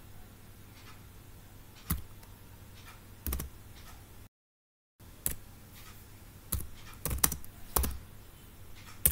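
Computer keyboard keystrokes, a few scattered single taps and then a quick run of several about seven seconds in, over a faint low steady hum. The audio drops to dead silence for about half a second midway.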